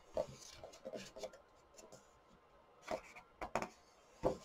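Pages of a paperback colouring book being turned by hand: soft paper rubbing and sliding, with a few sharp flicks and pats of the pages, the loudest about three seconds in and again near the end.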